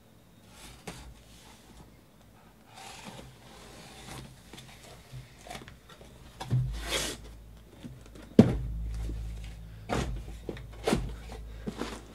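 Cardboard shipping case being opened and handled: rustling and scraping of cardboard and packing tape, with several sharp knocks as the sealed boxes inside are moved. The loudest knock comes about eight seconds in, with two more in the last few seconds.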